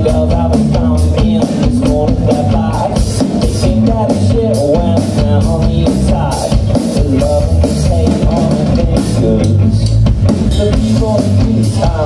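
Live rock band playing loud: electric guitars, bass guitar and a drum kit keeping a steady beat on the cymbals, with a voice singing over it.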